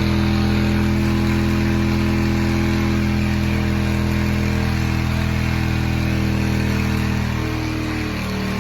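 Ram pickup engine running at a steady pitch with the throttle held to the floor, its crankcase filled with milk and Cheerios in place of oil; the pitch sags slightly near the end.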